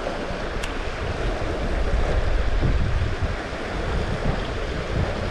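Steady rush of a trout stream's flowing water, with wind rumbling on the microphone and one short click about half a second in.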